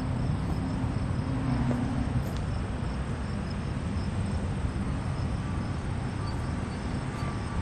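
John Deere 8360R tractor's diesel engine idling steadily. Faint, evenly repeated beeps start near the end.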